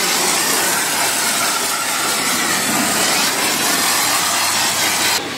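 Pressure washer foam lance spraying snow foam onto a car body: a loud, steady hiss that stops abruptly near the end.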